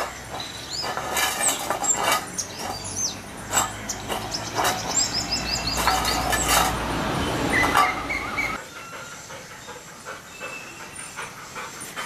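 Sunbird giving many short, high chirps that slide downwards, with a quick run of them in the middle. Several loud short bursts of noise and a low rumble come with it; the rumble stops about eight and a half seconds in, and fainter chirps carry on after.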